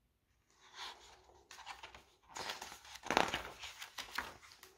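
Paper rustling as the pages of a picture book are handled and a page is turned, loudest about three seconds in.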